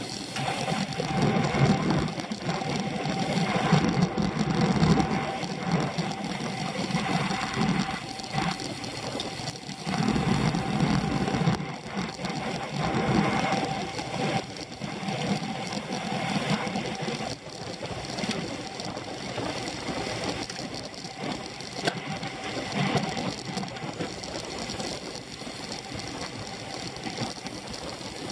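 Road racing bicycle riding at speed, heard from a handlebar-mounted camera: a steady mechanical whir of chain and tyres mixed with wind noise, swelling and easing in loudness.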